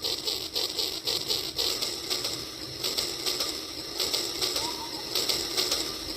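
Rail King battery-powered toy train running, with a steady mechanical clatter that repeats rapidly.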